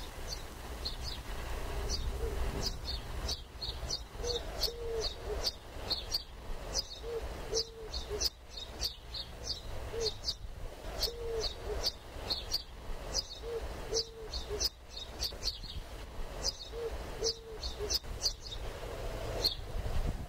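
Birdsong: rapid high chirps throughout, with a low cooing call repeated in short phrases every two to three seconds, over a low rumble.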